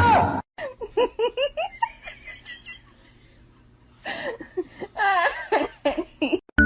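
High-pitched giggling laughter in two bouts of quick short bursts with a pause between, after a sudden loud burst at the very start.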